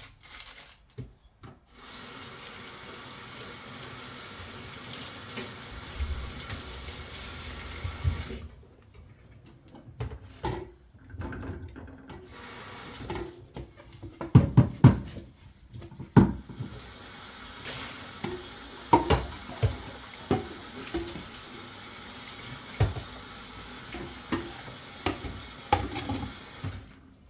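Water running from a tap into a sink in two long stretches, with knocks and clinks of dishes being handled between and during them.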